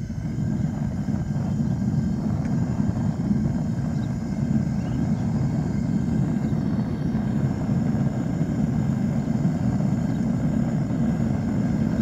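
Propane weed burner firing steadily into a small Devil Forge gas furnace: a continuous low rumble of burning gas as the furnace heats up.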